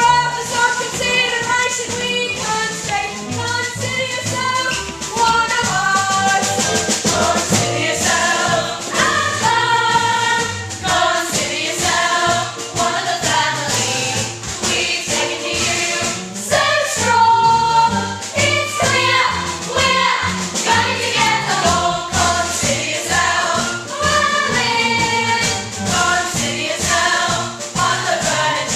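An upbeat song with several voices singing a melody over instrumental accompaniment and a steady jingling percussion beat.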